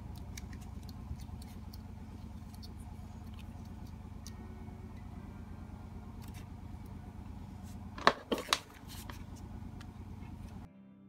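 Small clicks and taps of plastic and metal as a replacement flyback transformer is handled and its pins pushed into a TV circuit board, with three sharp, loud clicks about eight seconds in, over a steady low hum. The sound cuts off near the end to faint music.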